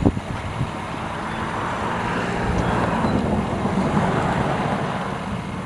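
Wind rushing past the microphone, growing louder through the middle and easing off, over the low steady hum of an idling vehicle engine, with a short bump at the very start.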